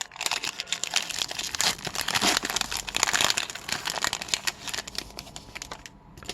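Plastic-foil wrapper of a hockey card pack crinkling as it is torn open and handled, a dense run of crackles that dies down near the end.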